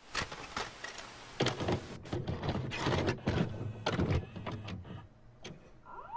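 Irregular mechanical clicking and whirring over a steady hiss. Near the end a cat meows, its call rising in pitch.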